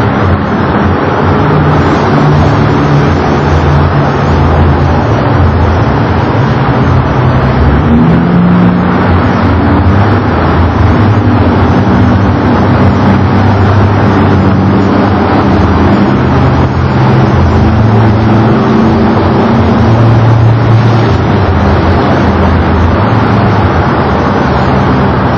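Boeing 727-200 freighter's three Pratt & Whitney JT8D turbofan engines running loud and steady, with a low hum that wavers in pitch.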